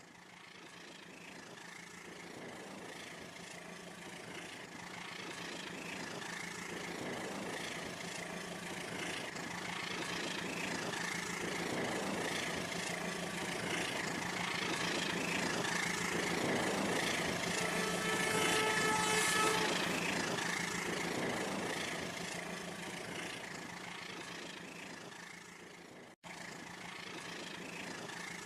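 Small electric motor and wheels of a Rail King toy train whirring steadily along its track. The sound grows louder to a peak about two-thirds of the way through and then fades, as if the train passes close by. A short pitched tone sounds at the peak, and the sound cuts out for a moment near the end.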